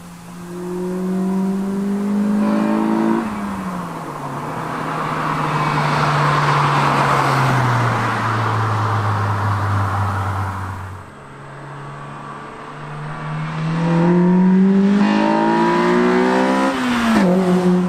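Acura RSX Type-S's K20 four-cylinder through a Yonaka catback exhaust, the car accelerating past with the engine note rising and dropping at a gearshift about three seconds in. After a cut, the car is heard revving up again as it approaches, with another shift near the end.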